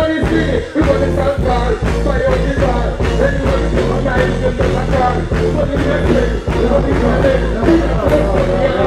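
Live reggae performance: a vocalist sings into a microphone over a heavy bass-driven backing track played loud through a stage sound system.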